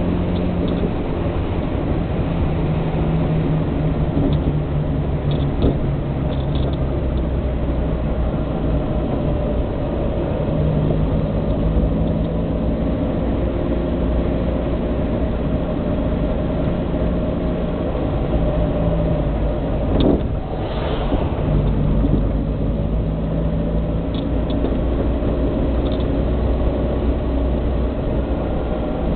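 Austin A40 Farina's BMC A-series four-cylinder engine and road noise heard from inside the cabin while driving. The engine note shifts up and down in pitch several times as the car speeds up and slows, and there is a single thump about twenty seconds in.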